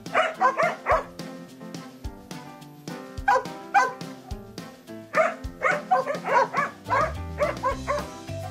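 A German Shepherd gives short, high yips in three quick runs, about four, then three, then eight, calling to be helped down from its high perch. Background music plays underneath.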